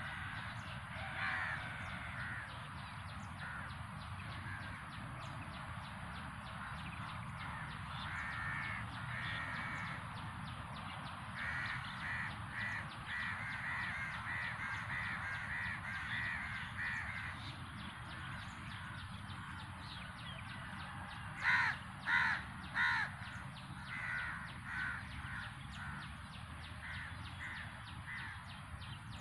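A bird calling over and over in short, pitched calls, with a long run of quick calls through the middle and three loud calls in a row about three-quarters of the way through.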